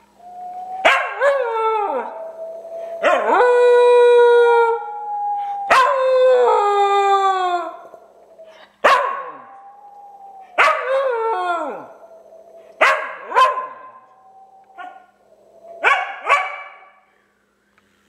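American Eskimo dog howling in a string of about nine falling-pitched yowls, shorter toward the end, in answer to a person's steady, high whistle held between the calls.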